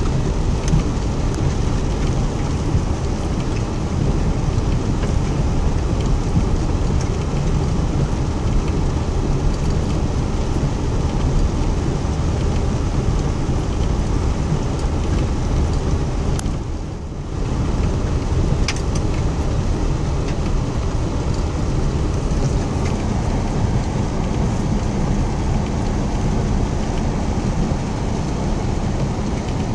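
Rain on a Chevrolet Tahoe, heard from inside the cabin as it drives through floodwater, mixed with the truck's low rumble. It is a steady, dense rushing noise that drops briefly a little past halfway.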